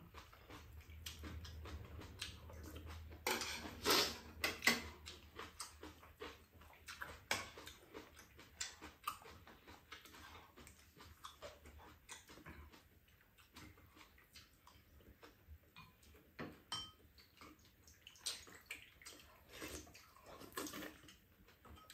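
Spoons and chopsticks clicking and scraping against a frying pan and bowls as fried rice is scooped up and eaten: a scattered run of light clicks, busiest a few seconds in.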